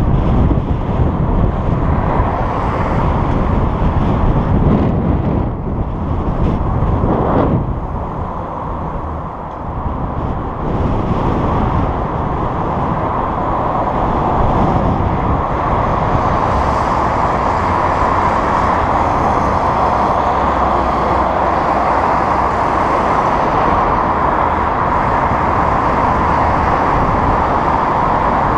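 Steady rush of wind and road noise from a bicycle rolling along a city street, mixed with the noise of car traffic. It eases briefly around eight to ten seconds in, then holds steady.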